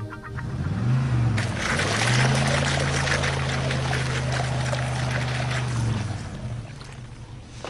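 Car engine revving hard while a wheel spins in loose dirt, spraying soil: the car is stuck. The engine rises about a second in, holds steady with the spraying hiss, then drops back near the end.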